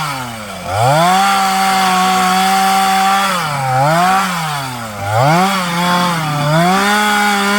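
Stihl two-stroke chainsaw held at high revs, dropping back and rising again several times as the throttle is eased and opened.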